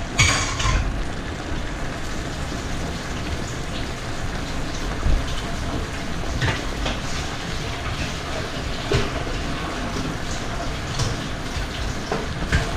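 Pan of puttanesca sauce sizzling hard under a heap of freshly drained spaghetti: a steady hiss with a brief louder crackle just after the start and a few faint ticks.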